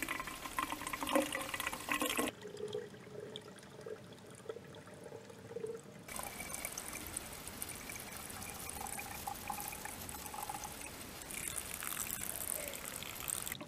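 A thin trickle of spring water running from a small pipe outlet into a plastic water bottle; the spring is barely flowing. The sound drops away abruptly about two seconds in and comes back about six seconds in.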